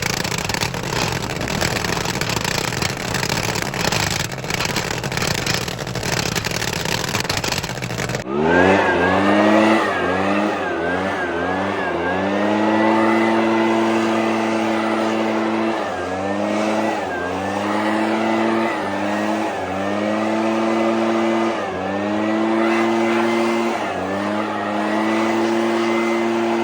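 Vermeer SC30TX stump grinder cutting a stump. For about eight seconds there is a dense, rough grinding noise. Then the sound changes abruptly to the engine running hard, its pitch sagging and recovering over and over as the cutter wheel takes load in the wood.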